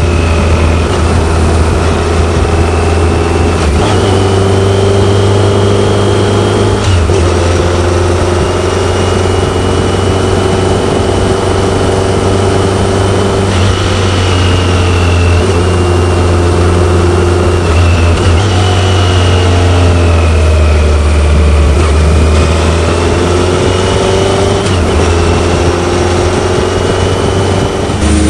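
BMW K1100LT's liquid-cooled inline-four engine running under way, its note stepping up and down in pitch several times with throttle and gear changes, over a steady rush of wind.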